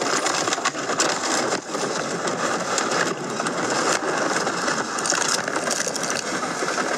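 A vehicle crashing and rolling over, heard from inside the cabin: a continuous loud rattling clatter broken by many sharp knocks and crunches as the body tumbles and the windscreen shatters.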